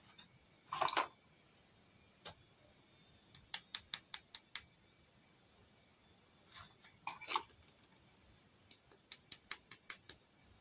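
Small hard clicks from handling toy pieces: two quick runs of five or six sharp clicks, each run over in about a second and a half, with two short scraping rustles in between, about a second in and past the middle.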